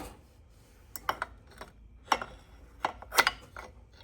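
A metal tool clinking and knocking against engine parts: about half a dozen separate sharp clicks, as a cam sprocket holding tool is tried for fit on the cam sprocket.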